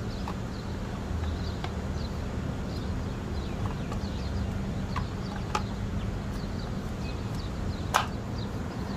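Scattered hard plastic clicks and knocks from the housing of a Nissan Sunny's IPDM fuse-and-relay box being handled and snapped back together, with a sharper snap about eight seconds in, over a steady low hum.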